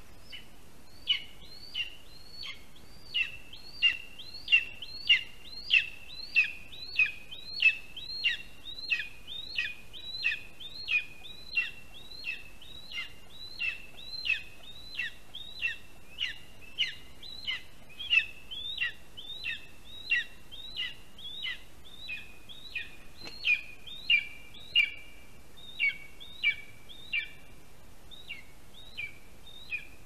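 Lesser spotted eagle chick giving a long run of high, repeated begging calls, about one and a half a second, each a short note that slides downward, as food is brought to the nest.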